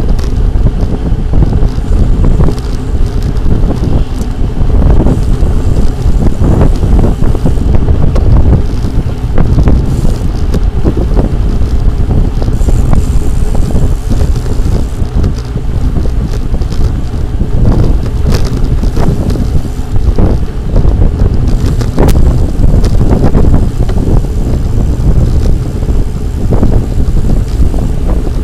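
Loud wind buffeting on the microphone of a moving bicycle, a constant low rumbling roar with a few sharp knocks.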